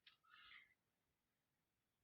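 Near silence: room tone, with one faint short sound in the first half second.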